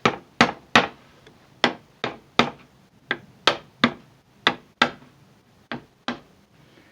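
A hammer striking on wood in a run of about fourteen sharp taps, two or three a second with a couple of short pauses. The taps come as a second glued dowel in the oak chair repair is worked down flush.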